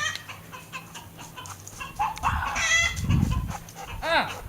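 Chickens clucking, with a harsh squawk about two and a half seconds in and another sharp squawk near the end, the squawks of a hen being chased and grabbed. A dull thump comes around three seconds in.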